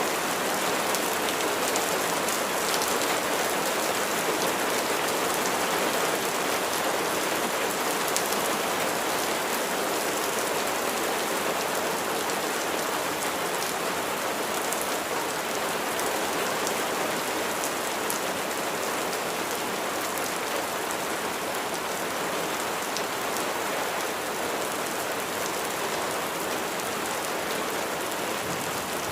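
Steady heavy rain falling, an even, dense hiss with scattered individual drops ticking on a surface.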